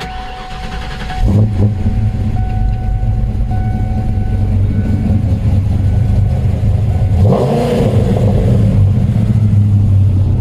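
1995 Mustang Cobra's V8, breathing through a Borla cat-back exhaust, is started and catches about a second in. It then idles steadily with a deep tone. A short throttle blip comes about seven seconds in before it drops back to idle.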